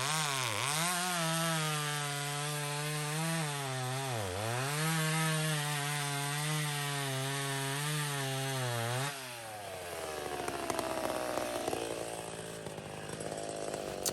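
Two-stroke chainsaw running at high revs, cutting wood, its pitch sagging briefly twice. About nine seconds in, the revs drop sharply and the saw runs on more quietly, its pitch wavering.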